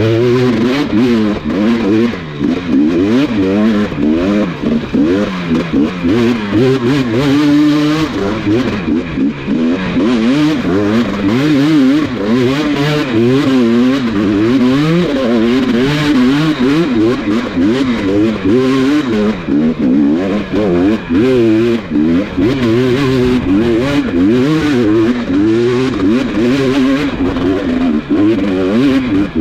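Dirt bike engine revving hard under heavy throttle, its revs rising and falling rapidly over and over as the bike churns through deep mud.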